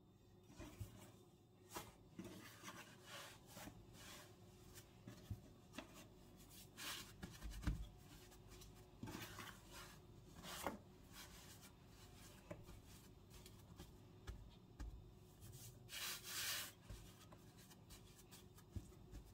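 Quiet kitchen handling sounds: soft rubbing and scraping with scattered light taps and clicks, one longer scrape near the end.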